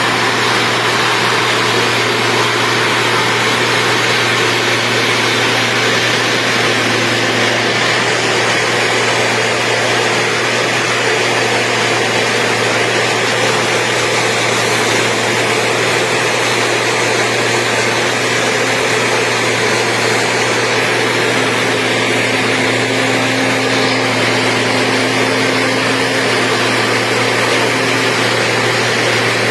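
Engine of a road-building machine running steadily, an even drone that holds without change.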